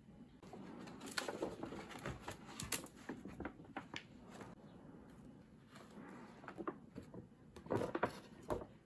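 Fabriano watercolour pad being handled and its pages turned: a run of dry paper rustles and soft knocks, in two bouts, starting about half a second in and again from about six seconds in.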